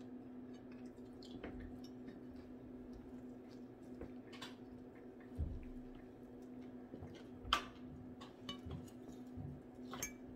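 Eating at a table: scattered clicks and taps of a fork and fingers against a plate and a sauce cup, the sharpest about seven and a half seconds in, over a steady low hum.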